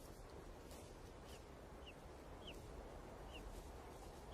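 Faint, high begging peeps from golden eagle chicks being fed: short downward-sliding chirps repeated about every half second, with a louder one at the very end.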